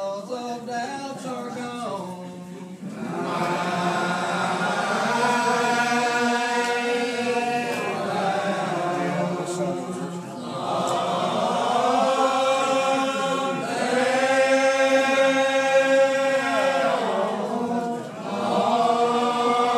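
Old Regular Baptist congregation singing a lined-out hymn in slow unison, each syllable drawn out and bent through long held notes. The singing dips briefly about three seconds in and again near the end, between phrases.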